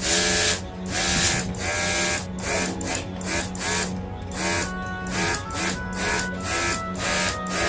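Cordless airbrush spraying paint, its small built-in compressor humming steadily, with a hiss of air and paint that comes and goes every second or so. Background music with a steady beat plays along.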